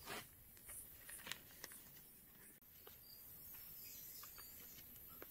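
Near silence: faint outdoor background with a few soft clicks and some faint high chirps about three seconds in.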